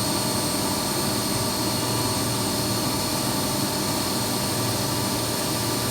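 CNC machine running steadily: an even machine noise with a constant high whine over a low hum.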